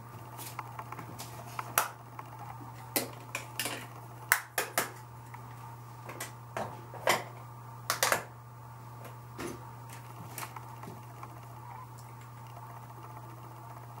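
Scattered clicks and clacks of small makeup items being picked up, opened and set down, loudest about four and eight seconds in, over a steady low hum.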